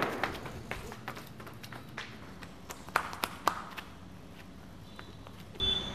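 Scattered, irregular footfalls and light taps of people running on a dirt path, just after a loud starting bang whose tail fades in the first moment. A short, louder sound with a high tone comes near the end.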